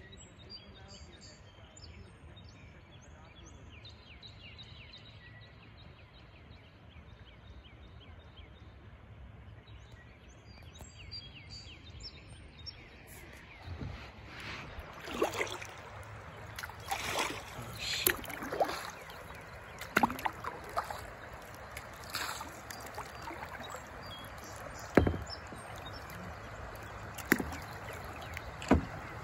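Kayak paddling starting about halfway through: irregular splashes of paddle strokes in the river, with a few sharp knocks of the paddle or gear against the kayak hull. Before that, a quiet stretch of low outdoor background with faint high chirps.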